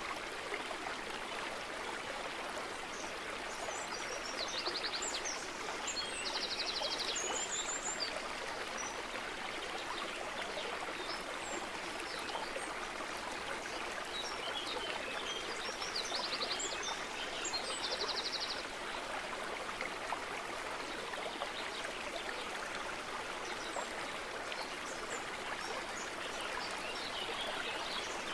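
Steady rush of running water, like a stream, with two short runs of high chirps and trills about ten seconds apart.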